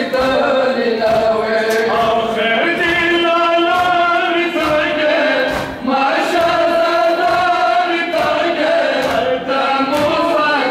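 A crowd of male mourners chanting a Muharram noha together in unison, in long held melodic lines, with faint chest-beating slaps (matam) about once a second.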